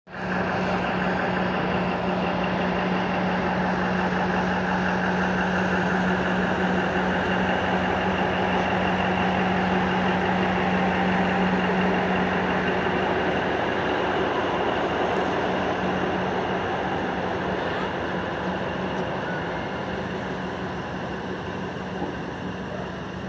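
An Indian Railways passenger train's coaches roll past on the track with a continuous rumble and clatter of wheels on rail. A steady hum from the train's generator power car drops away about halfway through, and the whole sound eases slightly as the train pulls away near the end.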